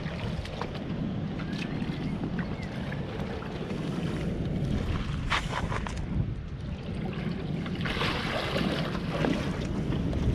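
Wind rumbling on the microphone over the steady wash of heavy surf on the reef, with a few light clicks; a louder rush of water about eight seconds in.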